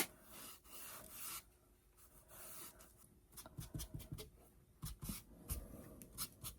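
Faint rubbing as brown wax is worked into, and wiped back off, the edges of a textured wooden craft piece, in short quick strokes in the second half.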